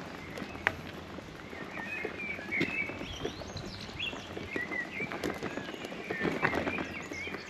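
Small birds chirping repeatedly, over irregular clicks and knocks of movement close to the microphone.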